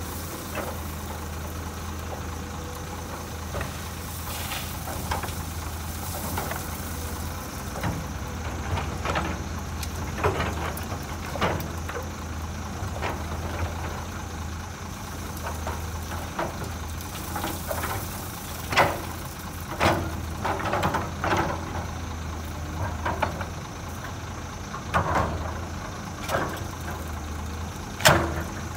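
A CAT hydraulic excavator's diesel engine running steadily as it loads rock and gravel into a steel dump-truck bed, with repeated sharp clanks and rattles of stone striking the bed. The impacts come more often in the second half, the loudest one near the end.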